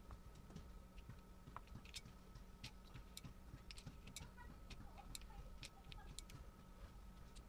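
Faint, irregular clicks and ticks of an Air Arms .22 rotary pellet magazine being loaded by hand, with pellets pressed into its chambers.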